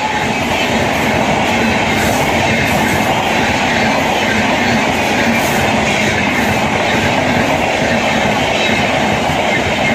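Passenger coaches of an express train running past at speed on a curve: a loud, steady rush of wheels on rail.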